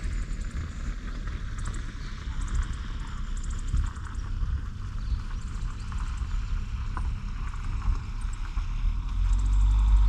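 Outdoor ambience dominated by gusty wind rumbling on the microphone, which swells near the end. Faint clusters of rapid, high chirps come and go.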